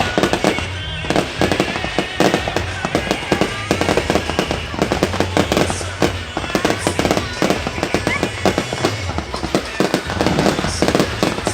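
Fireworks going off in a dense, continuous run of bangs and crackles, several cracks a second.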